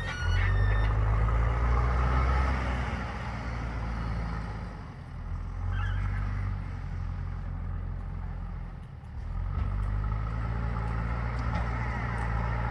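JCB 3DX Super backhoe loader's diesel engine running while working, its note easing off about five seconds in and again around nine seconds, then picking back up.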